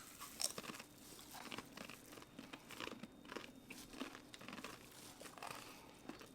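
Faint close-up eating sounds: soft irregular chewing and mouth clicks with small crunches as food is bitten and chewed.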